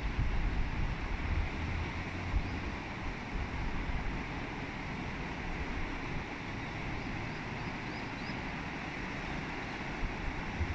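Steady rushing of the Kuzuryū River flowing over gravel shallows, with a low rumble of wind on the microphone in the first second or two.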